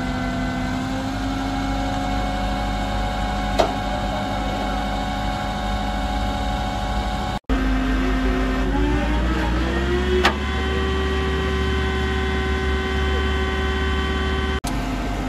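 Flatbed tow truck's engine running steadily with a mechanical hum. About two-thirds of the way through its pitch rises and holds higher as the engine speeds up. Two sharp clicks of metal are heard, one early and one just as the pitch settles.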